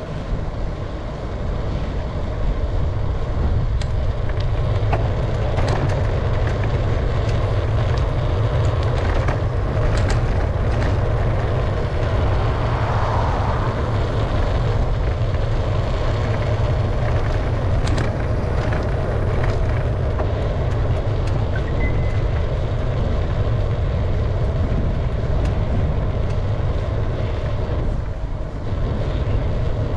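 Steady wind rumble on the microphone and road noise from a moving bicycle.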